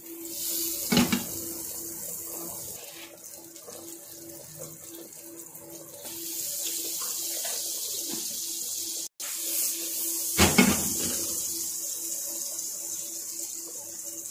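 Butter and oil sizzling in a hot wok: a steady high hiss with a faint hum underneath. Two short knocks stand out, about a second in and about ten seconds in.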